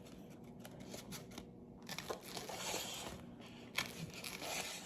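Faint crinkling, crunching and scraping of food being cut and handled at a kitchen counter, with a few sharp clicks.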